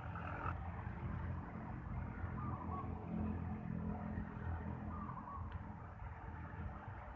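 Low, steady engine rumble of distant road traffic, swelling slightly about three seconds in, with a few faint short chirps over it.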